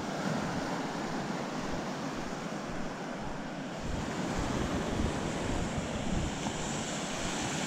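Small ocean waves breaking and washing up a sandy beach, with wind buffeting the microphone, the gusts growing stronger about halfway through.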